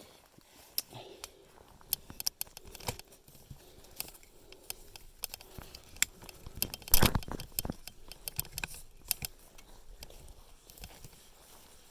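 Twigs and dry brush being handled and trodden on: irregular rustling, cracking and snapping, with a louder crunch about seven seconds in.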